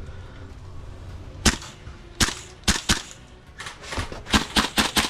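Gas blowback airsoft rifle, a Tokyo Marui MK18, firing single shots at an uneven pace: one sharp crack about a second and a half in, then about ten more in quick irregular groups.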